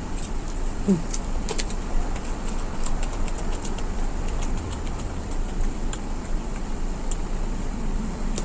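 A person chewing and crunching food, faint short clicks here and there, over a steady low background rumble.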